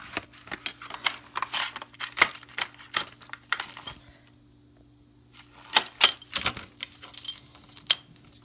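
Irregular clicks and clacks of new motorcycle brake pads being handled, in two spells with a pause of about a second in the middle.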